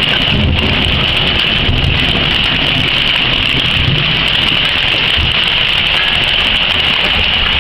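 Heavy hail and rain coming down hard in a thunderstorm: a loud, steady, dense clatter and hiss of falling hailstones, with an uneven low rumble underneath.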